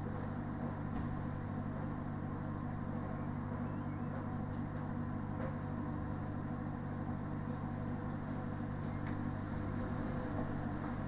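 Parked delivery lorry's idling engine and trailer refrigeration unit running together: a steady, unchanging low drone with a constant hum.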